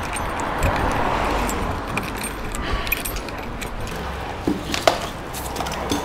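Street traffic noise: a vehicle passing, swelling about a second in and fading. A couple of sharp clinks or knocks come near the end.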